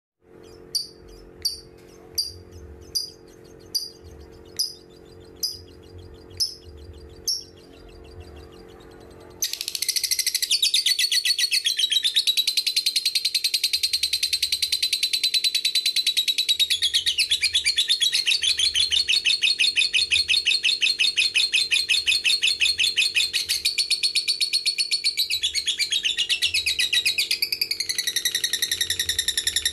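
Fischer's lovebird calling: about nine single sharp chirps, just under one a second, over a faint hum. About ten seconds in it breaks into a long, unbroken, rapid high chattering trill, the 'ngekek panjang' (long ngekek) song that keepers play to lovebirds.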